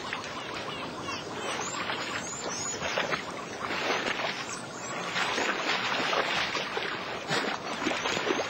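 Shallow water splashing and sloshing as young lions wade and scuffle through it, a continuous run of small splashes.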